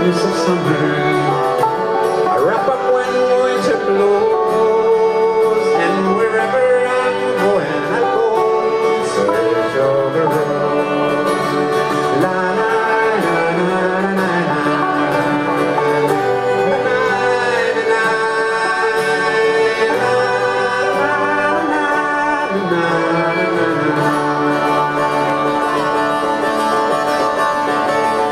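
Live folk band music: a man singing with acoustic guitar and other string instruments.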